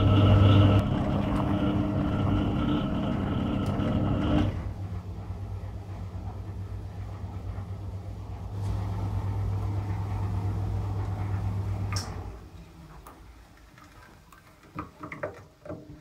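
Hoover 0307 washing machine's electric motor and pulsator running with a steady hum, dropping in level about four seconds in and stopping about twelve seconds in. A few light clicks and knocks follow near the end.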